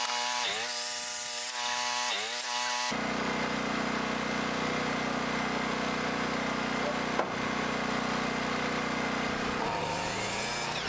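Electric miter saw cutting blocks from spruce lumber: the motor's pitch dips as the blade bites into the board and recovers, twice in the first three seconds. Then a steady mechanical drone takes over, and near the end the saw motor spins up again.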